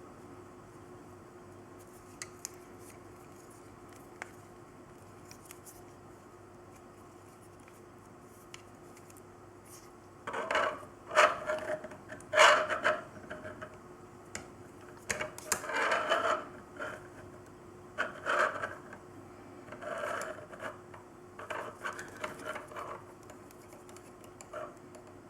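Hands handling a microphone and its packaging: a few light clicks, then from about ten seconds in irregular bursts of rubbing, scraping and rustling. A faint steady hum runs underneath.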